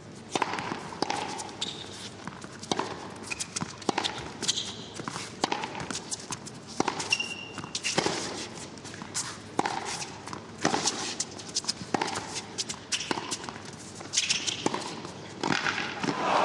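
Tennis rally: the ball struck back and forth with a sharp pop about every second and a half, with short high shoe squeaks and scuffs on the court between shots. Applause starts right at the end.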